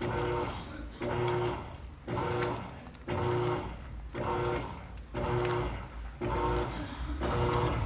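Electrolux Essencial Care LES13 top-loading washing machine agitating. The motor hums in about one stroke a second, with a short pause between strokes as the agitator reverses. It makes a noticeable racket, which is judged not terrible but not good either.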